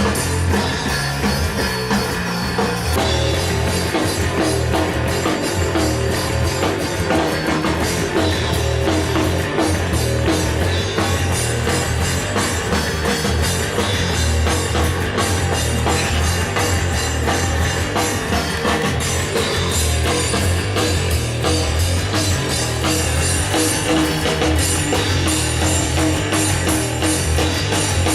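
Heavy rock music with a drum kit and electric guitar playing loud and steady throughout, with a pulsing low end.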